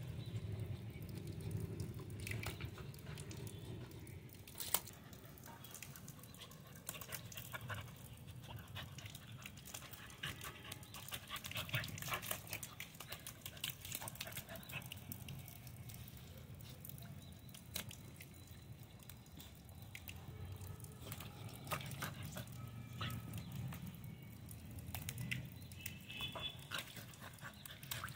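Labrador puppy playing in a shallow puddle on wet concrete: wet splashing and pawing with scattered short clicks, and dog sounds mixed in.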